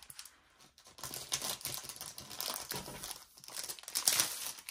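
Crinkly packaging being handled, an irregular rustling crinkle that picks up about a second in and is loudest near the end.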